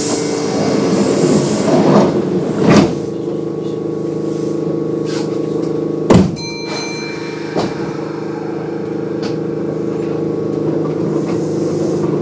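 Kintetsu 9200 series electric train with field-chopper control, heard from on board as it leaves a station: the doors thud shut, a sharp clunk comes a few seconds later, and the train's steady electrical hum runs under running noise that grows slowly as it pulls away.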